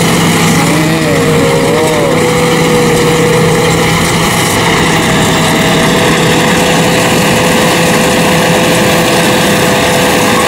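Tracked rice combine harvester running steadily at close range, its engine and machinery giving a constant hum as it crawls through a muddy paddy on its tracks.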